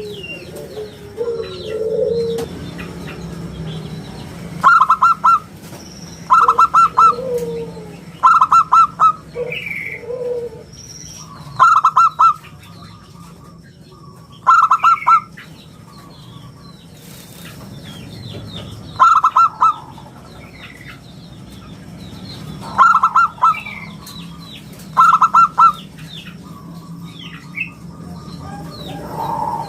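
Zebra dove (local perkutut) cooing. It gives short, loud phrases of quick staccato coos, repeated every two to four seconds with a longer pause in the middle. Faint high chirps of small birds come in between.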